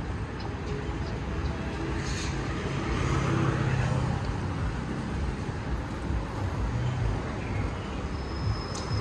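City street traffic: steady road noise from passing cars, swelling as a vehicle goes by with a low engine hum about three to four seconds in.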